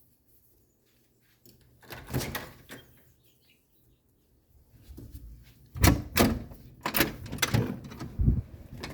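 A door being handled and opened: a few clicks about two seconds in, then a run of loud knocks and rattles from about five seconds on.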